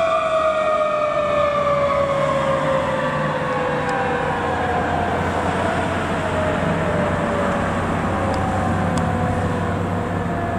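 Sirens of two Pierce fire trucks responding, one siren tone falling slowly and steadily in pitch throughout, with other siren tones higher up and a steady low engine rumble beneath.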